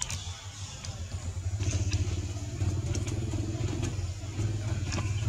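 An engine running steadily, heard as a continuous low hum, with a few faint scattered clicks over it.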